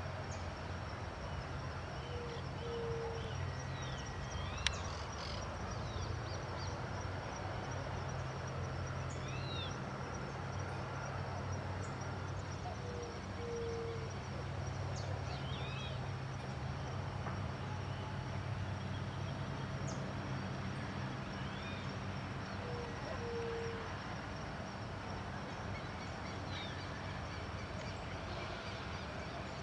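Steady outdoor background noise with a low hum. Small birds chirp now and then over it, and a low two-note call comes three times, about ten seconds apart. There is one sharp click about five seconds in.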